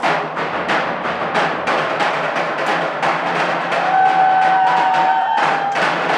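A drum ensemble playing a fast, steady beat of dense strokes. A held high tone sounds over the drums for about a second and a half in the middle.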